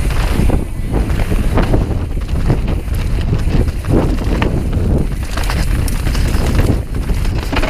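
Enduro mountain bike clattering down a rough forest trail at speed: tyres rumbling over dirt and roots with a rapid run of knocks and rattles from the bike, and wind buffeting the microphone.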